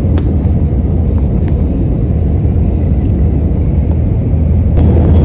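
Steady low rumble of a passenger jet's cabin noise, engines and airflow, growing a little louder near the end, with a couple of faint clicks.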